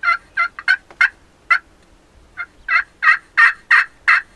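Turkey yelping: a series of short, repeated yelps at about three a second, in two runs with a pause of nearly a second between them, the second run steady and slightly louder.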